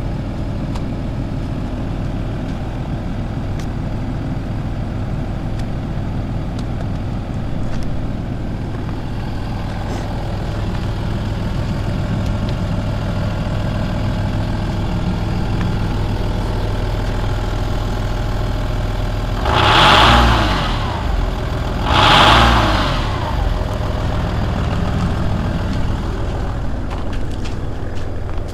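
Volkswagen Passat B5.5's 2.5-litre V6 TDI turbodiesel idling steadily, then revved twice briefly, about two seconds apart, in the later part.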